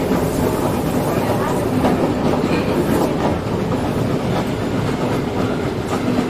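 Diesel regional railcar heard from inside, running along the line: a steady engine hum and running noise, with the clickety-clack of the wheels over the rail joints.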